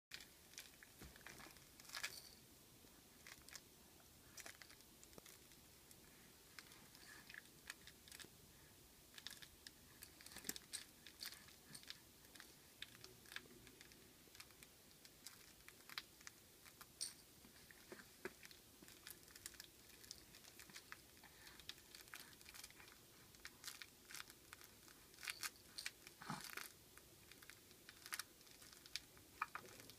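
Faint, scattered crinkles and clicks of a baby mouthing and handling a crinkly fabric toy, over near silence.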